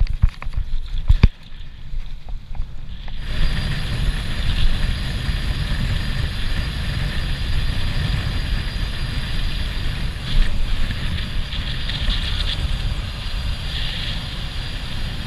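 A mountain bike jolts over a dirt trail with a few sharp knocks and a low rumble. From about three seconds in, a steady rush of wind on the microphone and tyre noise take over as the bike rolls fast on tarmac.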